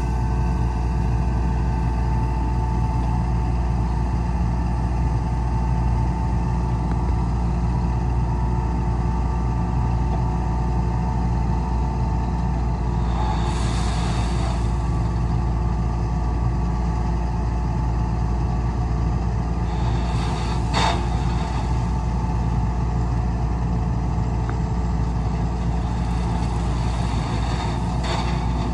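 Heavy diesel construction machinery running steadily with a low, even engine drone. Two brief hissing bursts come over it, about halfway through and again a few seconds later.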